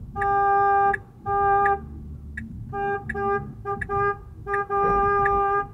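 A car horn honking in a run of short and long blasts, all at one steady pitch, heard from inside a car's cabin. Soft regular ticks between the blasts fit a turn signal clicking for a left turn.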